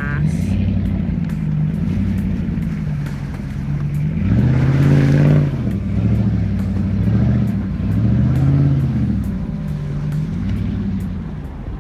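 Pickup truck's Hemi V8 engine revving up and down in repeated surges as the truck crawls over a rough, wet off-road trail. The strongest rev comes about four seconds in.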